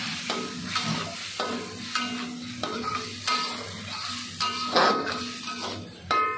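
A metal spatula scraping and knocking against an aluminium wok while stirring chicken pieces in sauce, in irregular strokes about once or twice a second, some leaving the wok ringing briefly. The sauce sizzles underneath.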